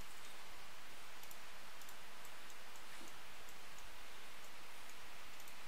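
Steady microphone hiss with a few faint, scattered clicks of a computer mouse.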